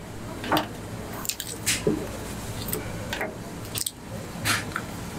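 Wet squelching and irregular sharp clicks of bivalve shells being handled and pried apart by hand, shell knocking on shell and on the board, about a click or two a second.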